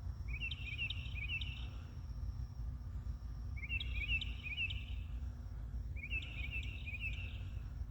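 A bird calling three times, each call a quick run of short chirping notes lasting about a second and a half, over a steady low hum.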